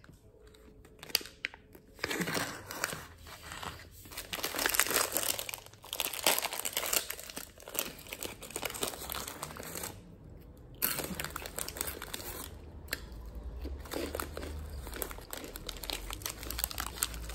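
Foil-lined pickle pouch and a plastic chip bag crinkling and tearing as they are handled and opened. The crackling starts about two seconds in, pauses briefly around ten seconds, then resumes.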